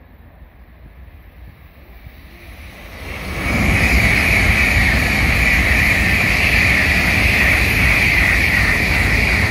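Tokaido Shinkansen N700-series train passing at high speed. Its steady rushing noise, with a strong high hiss, builds about three seconds in and stays loud.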